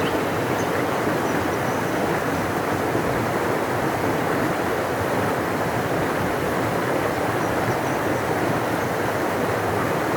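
Large river rushing: a steady, even roar of flowing water.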